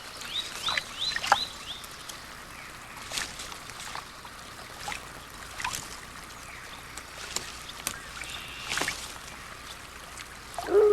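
Outdoor nature ambience: a quick run of four high, downward-sweeping bird chirps, then scattered short calls and clicks over a faint steady background. A loud long held tone begins right at the end.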